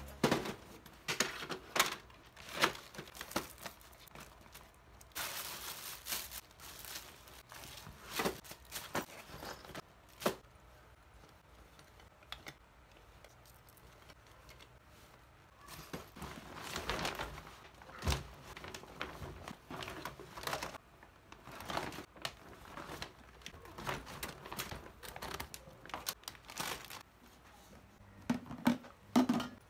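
Crinkling and rustling of packaging being handled, in irregular bursts with scattered clicks and knocks.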